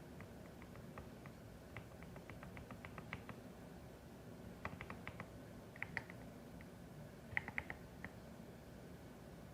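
Typing on a CIDOO ABM081 Stellar mechanical keyboard with Carda switches: keystroke clicks in quick irregular runs. There is a short pause about four seconds in, and the loudest flurry of strokes comes after about seven seconds.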